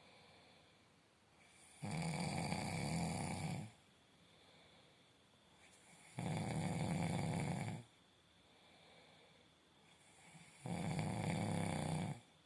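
Someone asleep and snoring: three long snores, each lasting a second and a half to two seconds, about every four and a half seconds, with quiet breathing between them.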